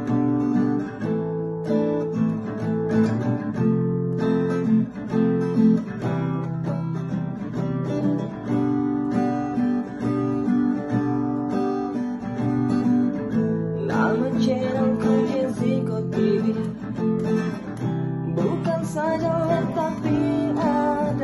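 Background music: a song played on strummed acoustic guitar. A wavering melody line comes in about two-thirds of the way through and again near the end.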